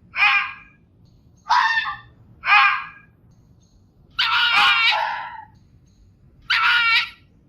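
Fox calling: five short, harsh barking calls about a second apart, the fourth one longer and drawn out.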